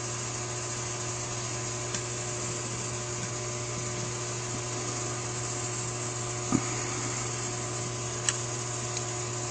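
Steady low electrical or motor hum with a few light clicks, the clearest about six and a half seconds in, from small metal carburetor parts being handled while a retaining clip is fitted.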